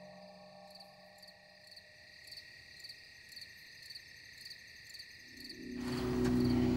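Crickets chirping at night, a faint even pulse of about two chirps a second. Near the end a low steady hum swells in and gets much louder.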